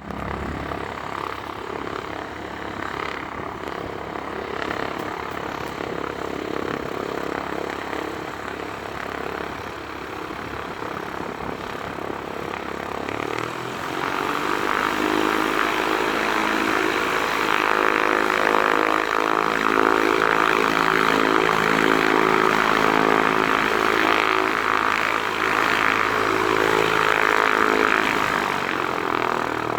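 Bombardier CRJ200 regional jet's twin turbofan engines running; about halfway through they spool up to takeoff power and the sound grows louder, a steady jet rush with a chord of humming tones that holds until it eases slightly near the end.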